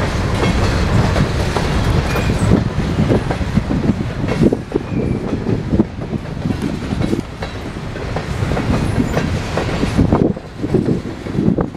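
Empty covered hopper cars of a freight train rolling past: steel wheels clacking over rail joints over a steady low rumble.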